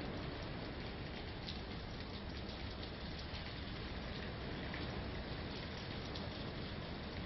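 Hurricane rain and wind driving against a house: a steady, even rushing hiss with no let-up.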